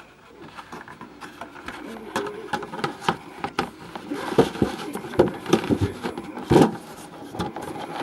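Irregular clicks, knocks and scrapes of small hard objects being handled, busiest in the second half, with the loudest knock about six and a half seconds in.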